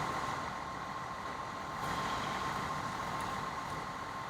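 Fire engine idling: a steady engine hum with a constant high whine.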